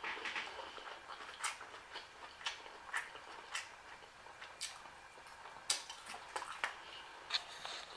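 Close-up mouth sounds of a person eating shrimp and ramen noodles: wet smacking and chewing, with a string of sharp, irregular clicks.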